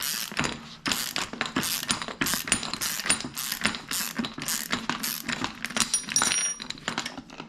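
Hand ratchet clicking in repeated quick strokes, about two a second. It is driving a 5 mm Allen bit that spins a strut's shock shaft to undo the top nut, which is held still with a punch.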